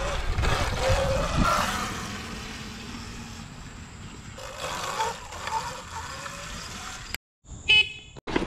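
Sur Ron X electric dirt bike's motor whining under throttle, its pitch rising and falling as the bike is ridden, quieter while it is far off. Near the end, after a brief dropout, comes a short loud tonal blast.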